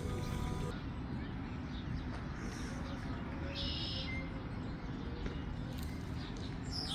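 Outdoor background noise: a steady low rumble with a brief high-pitched chirp about halfway through.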